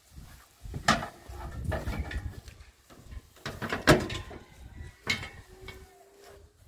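A few sharp knocks and clatters of objects being handled, the loudest about four seconds in, with low rumbling handling noise between them.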